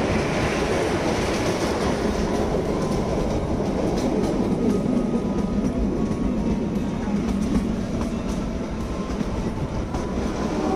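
Kalka–Shimla narrow-gauge toy train running, heard through an open carriage window: a steady rumble of the coaches and wheels on the rails with a light clickety-clack. A faint thin whine joins in the second half.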